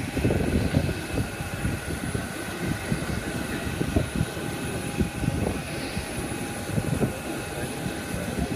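Parked jet airliner running beside the apron, a steady high whine of several tones over a low, crackling rumble.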